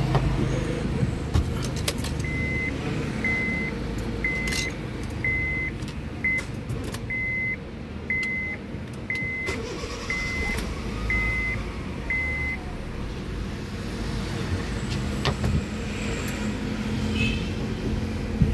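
Honda City dashboard warning chime, eleven short high beeps about one a second, sounding with the ignition on and the engine not yet running. A steady low rumble lies underneath.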